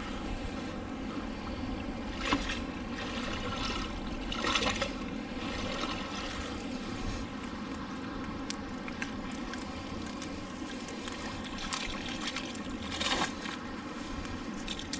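Canal water trickling and sloshing as a fishing magnet on its rope is hauled in, with a few short splashes about two seconds in, about four and a half seconds in and near the end.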